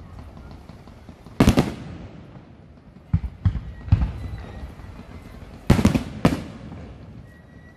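Aerial firework shells bursting overhead: a loud bang about a second and a half in, a quick run of three smaller bangs around three to four seconds, and two more loud bangs about six seconds in, each followed by a short echo.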